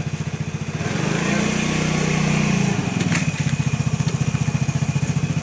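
Piaggio Fly scooter engine idling with a steady, even pulse. About a second in it grows louder for a second and a half, then settles back to idle.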